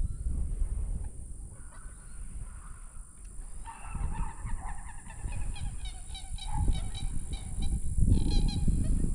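Geese honking in a rapid run of calls about a third of the way in, then a shorter burst near the end, over a steady low rumble.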